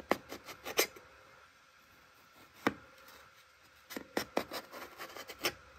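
Kitchen knife cutting lengthwise through a peeled eggplant, the blade tapping against a plastic tray with each stroke: a quick run of sharp taps at the start, a single tap in the middle, and another run of taps in the last two seconds.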